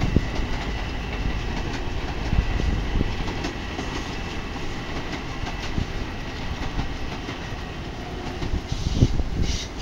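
Long Island Rail Road M7 electric multiple-unit train running past: a steady low rumble of wheels on the rails with a few faint clicks.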